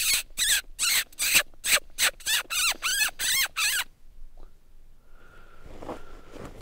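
A predator call blown in a rapid run of short, loud squeals, about three a second, each bending up and down in pitch, imitating a prey animal in distress to draw in coyotes. The calling stops about four seconds in.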